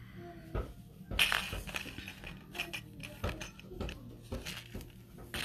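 Light clicks and clinks of small hard jewelry-making items, beads and tools, being picked up and handled on a tabletop, with a louder scraping sound about a second in.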